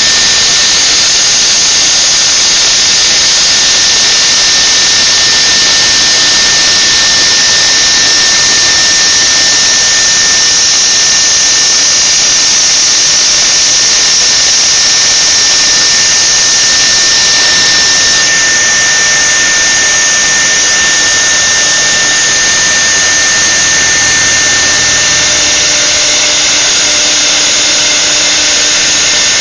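A 3-axis CNC router's spindle running under power: a loud, steady, high-pitched whine over a dense hiss. The sound shifts a little about two-thirds of the way through.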